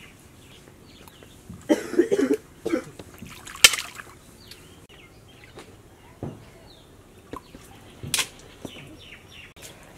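Pond water splashing and sloshing as a person wades and gropes in it for snails, with sharp splashes a little under four seconds in and again about eight seconds in.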